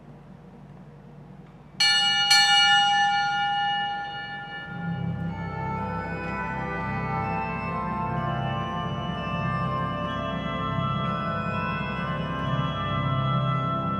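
A bell struck twice in quick succession, ringing loudly and dying away, then the church organ starts playing sustained chords about five seconds in.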